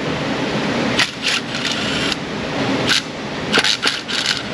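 A few short metallic clicks and clinks of hand tools, a socket on an extension, working among the engine's coils and plugs, over a steady background hiss.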